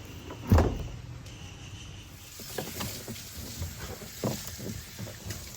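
Hands handling a cable and car interior trim: irregular clicks, knocks and rustling, with one loud thump about half a second in.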